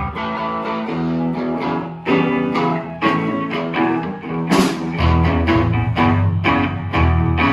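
A band playing, led by guitar. A deep bass line comes back in about five seconds in, just after a brief sharp crash.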